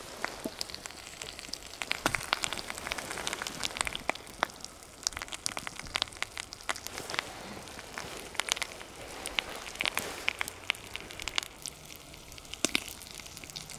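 Small twig fire burning over an open can of tuna in oil, crackling with frequent, irregular sharp pops.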